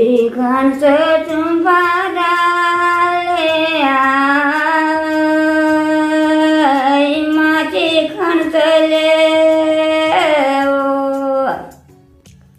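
An elderly woman singing a Nepali folk song in the thadi bhaka style without accompaniment. A single voice holds long, drawn-out notes and slides between them, and the phrase ends about eleven and a half seconds in.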